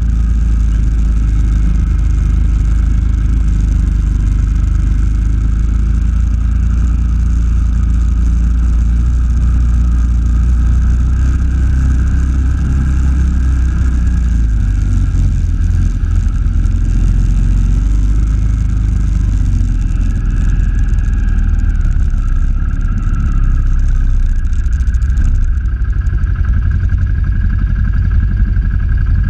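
All-terrain vehicle engine running steadily while riding, heard loud and close from the machine the camera is mounted on, with a deep low rumble.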